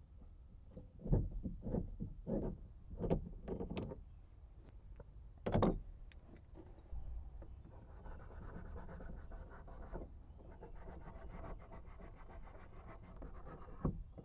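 Mini tubing cutter turned around a copper pipe stub, a faint steady rhythmic scraping as the wheel scores through the copper. It is preceded by a few light clicks and knocks in the first four seconds and a louder knock about five and a half seconds in.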